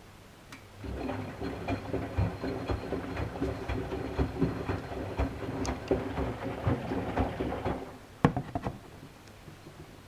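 Miele Softtronic W 435 front-loading washing machine on a delicates wash: the drum turns for about seven seconds, its motor humming under water sloshing and laundry clattering, then stops. A single sharp knock follows soon after.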